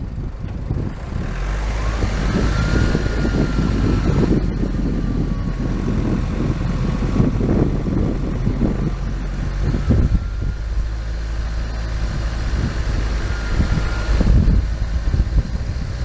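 Motor vehicle engine running, a steady low drone with rough noise over it and a faint whine that rises and falls a couple of times.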